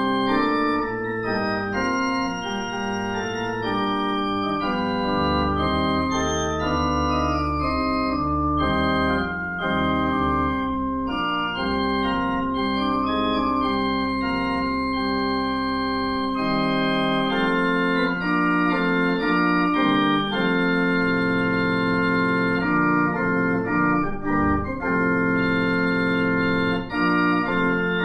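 Organ playing a postlude at the end of a worship service: sustained, slowly changing chords over long-held low bass notes, which drop out for a few seconds midway and then return.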